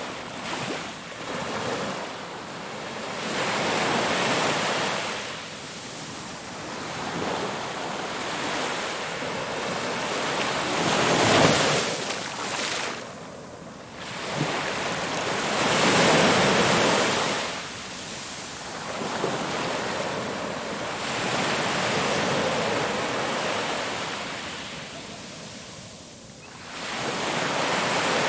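Ocean waves breaking and washing on a shore, the surf swelling and falling back every few seconds, with the biggest breakers about 11 and 16 seconds in.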